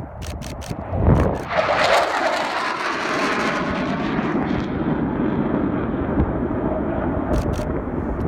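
A Panavia Tornado jet flying past, its twin turbofan engines swelling to full loudness about a second in and staying loud. A few camera shutter clicks come near the start and again near the end.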